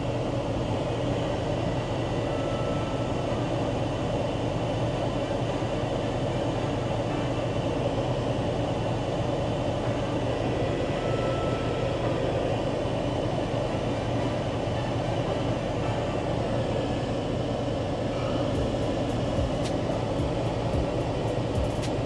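Steady drone of a pickup truck running at idle, even throughout. A faint, fast ticking, about four a second, starts near the end.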